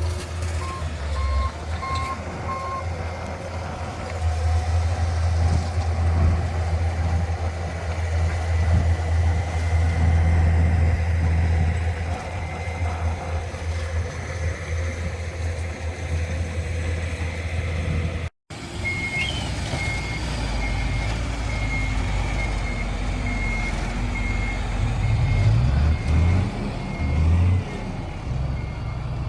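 Heavy earthmoving machine's diesel engine running under load, with a reversing alarm beeping. A short run of beeps comes near the start; after a sudden break about two-thirds of the way in, a higher-pitched alarm beeps repeatedly over the engine.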